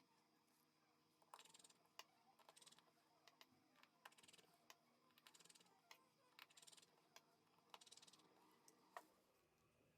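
Faint clicks and short rasping bursts, about six of them, from small repair tools working on a phone being reassembled.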